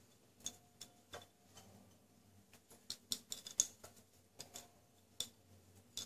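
Faint, scattered light clicks and taps as halved boiled eggs are picked up from a plate and handled to rub in the seasoning, over a faint low hum.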